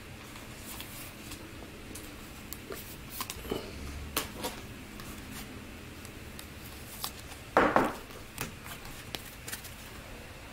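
Hard plastic trading-card holders being handled and set down: scattered light clicks and taps, with one louder knock about three-quarters of the way through.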